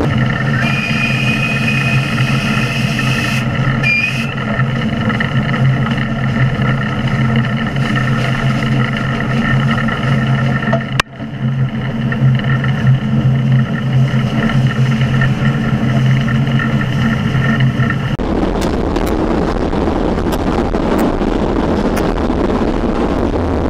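Tkt48 steam locomotive running, heard close up from its side: a steady hum made of several fixed tones. About 18 s in it gives way to the even rumble of a passenger carriage rolling along the track.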